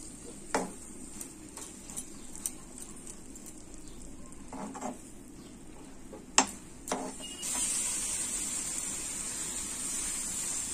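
A spoon stirring and scraping a sticky mawa (khoya) filling in a non-stick frying pan while it roasts dry, with scattered clicks of the spoon against the pan and a sharper knock about six seconds in, over a faint sizzle. A steadier hiss sets in about seven seconds in.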